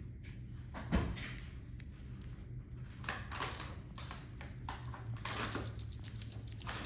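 French bulldog puppies scuffling in play, with a single thump about a second in, then a run of short knocks and scrapes.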